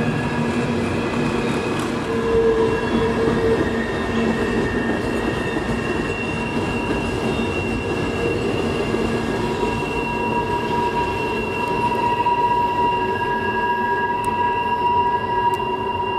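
Freight train rolling past with its steel wheel flanges squealing on a tight curve: several steady high tones held over the continuous rumble of the cars.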